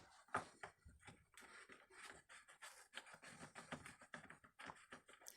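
Faint, scattered clicks and scrapes of hand tools and plastic and metal parts being handled while a Stihl MS 181 chainsaw is taken apart at the carburetor adapter.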